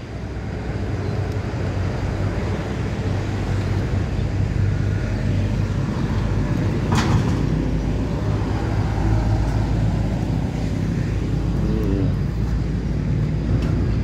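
Motor vehicle engine running steadily close by, a continuous low rumble, with one brief sharp sound about halfway through.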